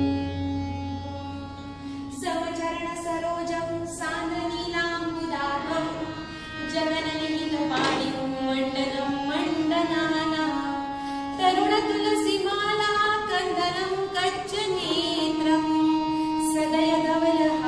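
A woman singing a devotional abhang over a steadily held harmonium drone. The last tabla stroke of the previous piece fades at the start, and the singing begins about two seconds in.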